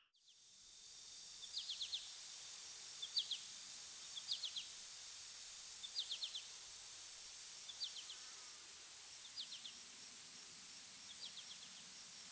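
Crickets chirping: short chirps of three or four quick pulses about every second and a half, over a faint steady high-pitched insect trill. The sound fades in after a brief silence at the start.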